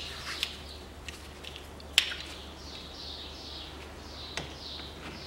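Spring hose clamp on a radiator hose being worked with clamp pliers: a few sharp metallic clicks, the loudest about two seconds in. In the second half, short high squeaks repeat about twice a second over a steady low hum.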